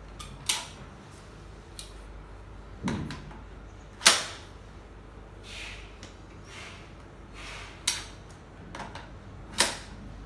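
Plastic-and-metal joints and latches of a child's convertible balance bike/tricycle with push handle clicking as it is folded by hand: five sharp clicks, the loudest about four seconds in, with softer rubbing and sliding sounds between them.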